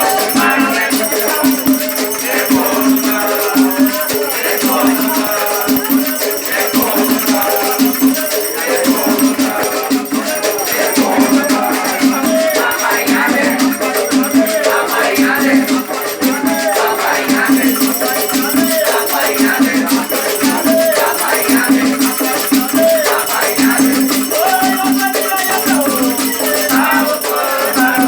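Afro-Brazilian Batuque ritual music for the orixá Iansã: voices singing over shaken rattles and a steady, repeating beat.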